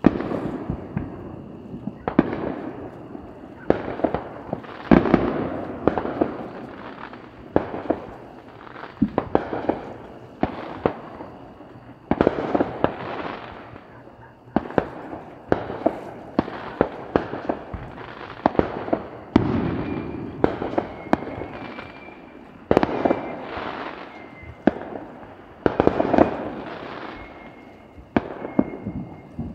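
Aerial fireworks going off in a steady run of sharp bangs, about one every second or two, each trailing off in an echo.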